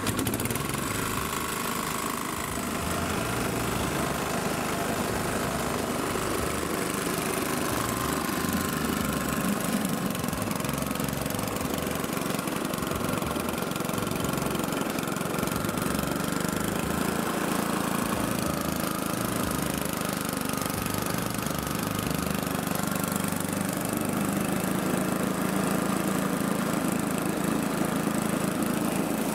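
Small single-cylinder petrol engine on a cassava grating mill, pull-started by its cord at the very start and then running steadily as it drives the grater grinding peeled cassava into wet pulp.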